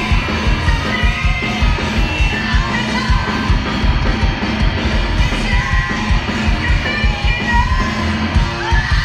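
Live heavy rock band playing loud, with fast, pounding drums and guitars under a female singer's vocals, as heard from the audience in a hall.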